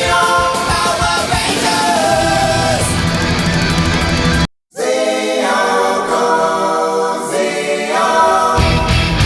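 Rock music with singing and electric guitar. It cuts out completely for a moment about halfway through, then resumes with the bass dropped out for a few seconds before the full band returns near the end.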